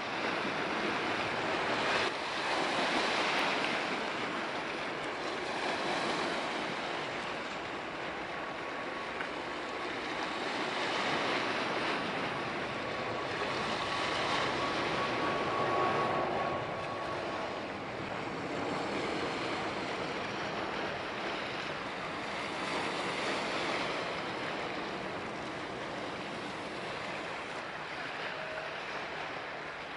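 Steady rushing of wind and harbour water at the water's edge, swelling and easing every few seconds. A faint thin whistle-like tone holds for several seconds in the middle.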